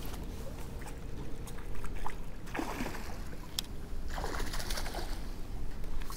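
Hooked zander splashing at the water's surface twice as it is played in, over a steady low rumble.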